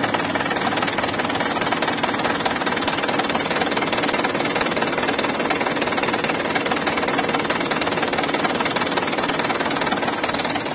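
2012 Mitsubishi Canter HD 125's four-cylinder diesel engine idling steadily. The even idle is the sign of an engine in good condition.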